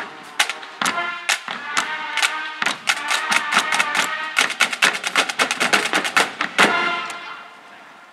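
Marching drumline with bass drums playing a percussion passage of sharp, ringing drum strokes. The strokes come faster in the second half and end on a loud hit, which rings and fades out.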